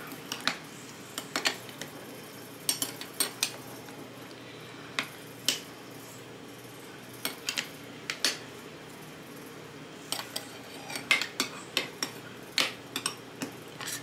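Metal spoon clinking and tapping against glass mason jars as cucumber slices are spooned in, in a scattered run of sharp clinks, busiest in the last few seconds.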